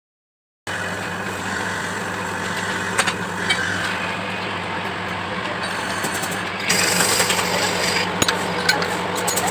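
Brake lathe cutting a car brake drum: a steady motor hum with a rasping cut and a few sharp ticks, growing louder and harsher about seven seconds in.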